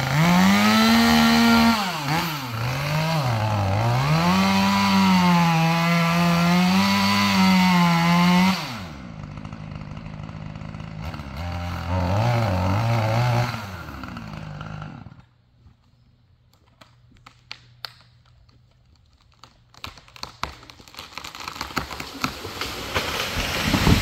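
Chainsaw at full throttle in a felling cut, its revs sagging and recovering as the bar loads in the wood, then dropping to idle, revved briefly, and shut off. After it stops, irregular wood cracks grow denser and louder as the tree goes over, ending in a loud crash near the end.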